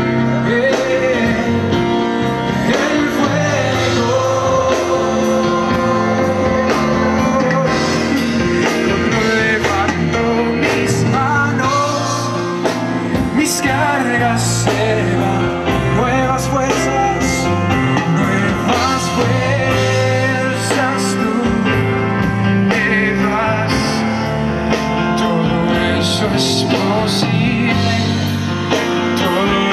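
Live band playing a worship song, with singing over the instruments.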